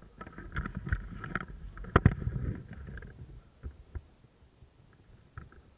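Irregular rustling and light knocks over a low rumble, with one sharp, loud knock about two seconds in; the knocking thins out after about three seconds.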